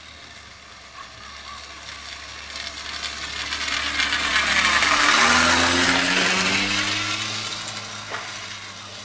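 Mechanical whirring and rattling of the racetrack's lure line being reeled along the ground as it sweeps past, swelling to a peak about five seconds in and then fading.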